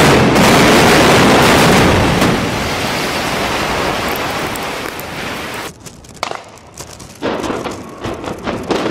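Building coming down in an explosive demolition. A loud roar of collapsing concrete and falling debris starts suddenly and slowly dies away. Near the end comes a run of sharp cracks and pops.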